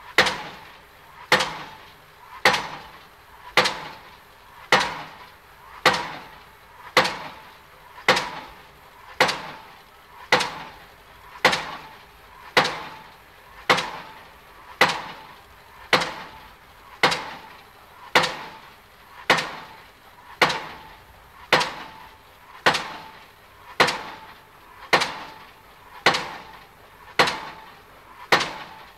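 Pile driving: heavy, evenly spaced blows about one a second, each with a short ringing decay.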